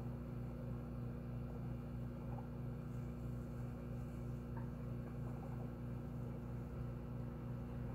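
Steady low hum with a faint regular pulse and no sudden sounds.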